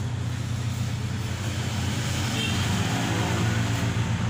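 Steady low rumble of road traffic, with a swell of noise about two seconds in, like a vehicle passing.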